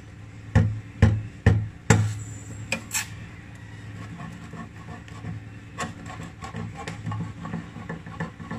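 Kitchen knife point stabbed down into the lid of a tin can to open it without a can opener: four sharp metal knocks about half a second apart, then a few lighter taps.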